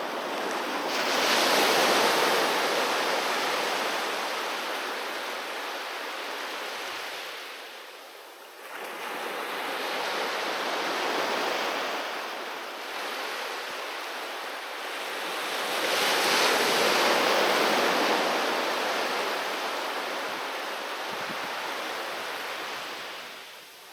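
Sea waves breaking on a beach three times in turn, each one building quickly to a peak and then washing out over several seconds before the next arrives.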